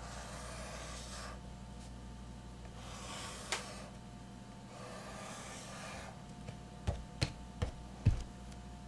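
Pencil lead scratching across sketchbook paper in several short stretches as circles are drawn by hand. Near the end come a handful of dull knocks.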